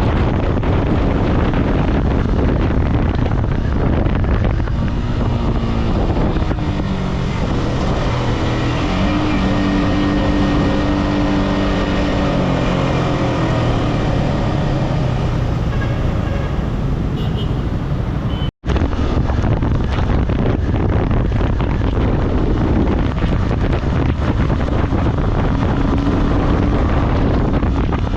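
Yamaha R15M's single-cylinder engine on its stock exhaust, running under way with heavy wind noise on the microphone. The engine pitch rises and falls several times through the middle, and the sound cuts out for an instant about two-thirds of the way through.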